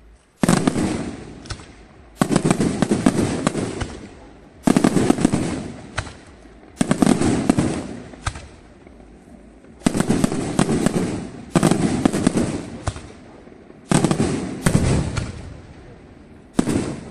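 Aerial fireworks bursting one after another, about nine bangs roughly two seconds apart, each trailing off into crackling as the stars fall.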